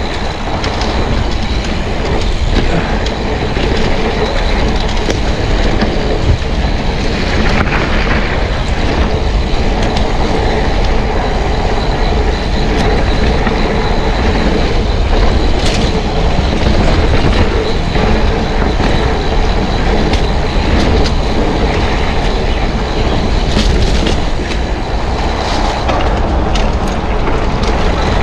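Mountain bike being ridden over a rough trail: a loud, continuous rumble from the tyres and frame, with steady rattling and clicking from the bike.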